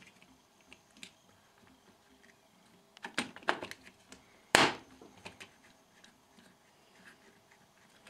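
Hard plastic parts of a vacuum cleaner's cable rewind reel clicking and knocking as they are handled and pressed together, with one loud sharp snap about four and a half seconds in as a part seats.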